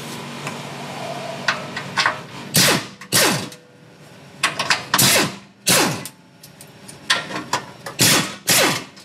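Pneumatic impact wrench on a long extension rattling bolts loose under a Toyota Land Cruiser 80 Series. It goes in six short bursts, grouped in three pairs, and each burst ends in a falling whine as the tool spins down.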